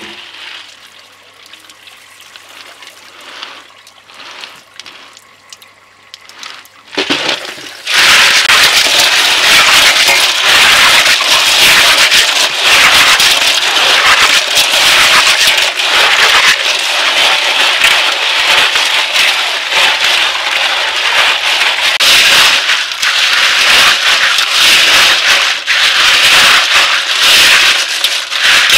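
Water pouring from a hose into an aluminium basin of freshwater snails, fairly quiet at first; from about eight seconds in, hands scrub and stir the snails, and their shells clatter and grate together loudly over the splashing water.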